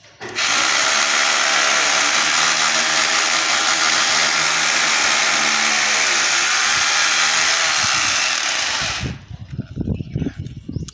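Electric drill boring into a concrete floor: a steady, loud motor whine with bit grinding through concrete, drilling holes for the screws of the saddle clamps that hold electrical PVC conduit down. It stops about nine seconds in, followed by a few low knocks.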